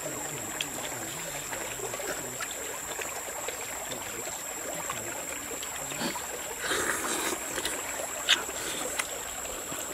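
Steady rush of flowing water in forest, with a thin high steady whine over it and a couple of sharp ticks near the end.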